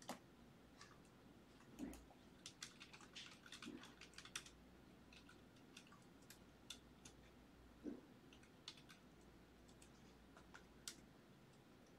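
Faint computer keyboard typing: scattered keystrokes, with a quick run of them between about two and four and a half seconds in, and a few soft low knocks.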